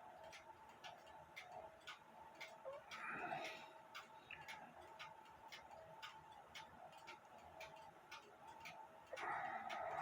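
A mechanical clock ticking steadily, about three ticks a second. Two brief handling noises are heard, about three seconds in and near the end.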